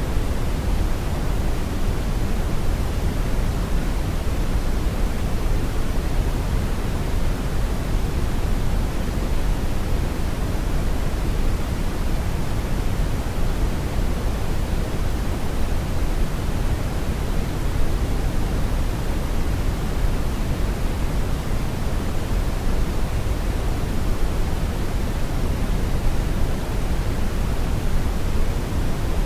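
Steady brown noise: a constant deep rushing hiss, strongest in the low end, with no changes or events.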